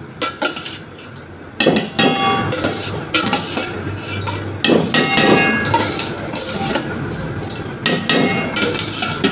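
Metal skimmer spoon scraping across a steel tray and clinking against the rim of an aluminium pot as soaked rice is scooped into boiling water. The scrapes and ringing clinks start about a second and a half in and repeat.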